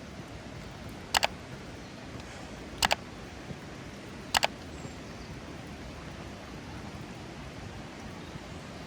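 Steady hiss of rain falling, broken by three sharp double clicks about a second and a half apart in the first half.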